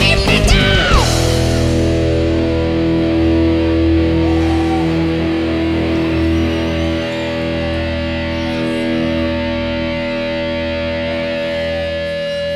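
End of a heavy metal song: the full band stops about a second in, leaving a distorted electric guitar chord ringing out, held steady.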